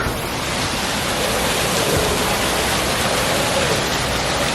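Steady rushing noise, like falling water, with no breaks.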